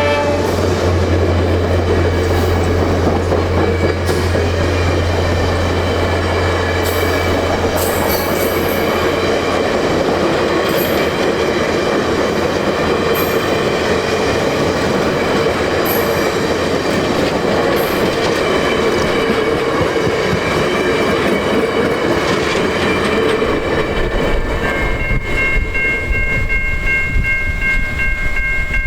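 VIA Rail's Canadian passenger train rolling past, its wheels clattering on the rails. A low hum fades out about nine seconds in, and steady high tones come in near the end.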